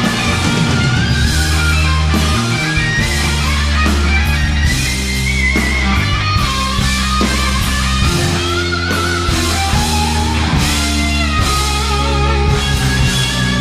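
Rock music with guitar, a steady bass line and a wavering lead melody.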